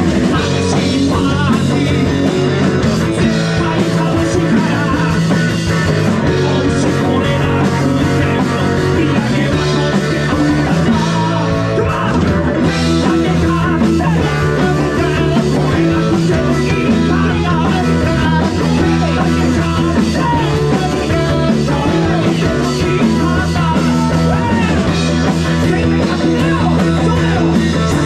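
A rock band playing live, with guitar: continuous, loud and steady music.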